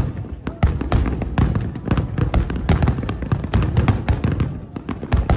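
Fireworks display: aerial shells bursting in a rapid barrage, several sharp booms and crackles a second over a continuous rumble.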